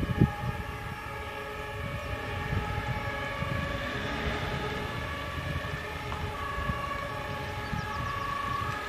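Alarm siren sounding a steady chord of several held tones, over a low, rough rumble.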